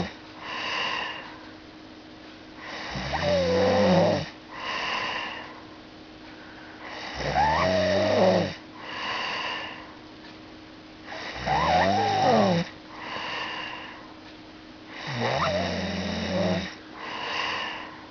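Snoring in a steady rhythm, about one breath every four seconds: four loud, rough, pitched snores, each followed by a softer, breathy sound.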